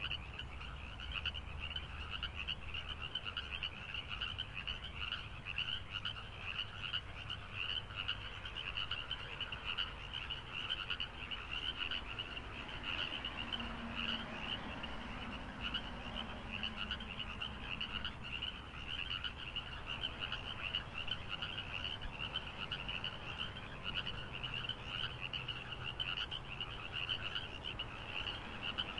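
Frogs calling in a dense chorus: a steady, rapid trilling at one high pitch, many calls overlapping without a break.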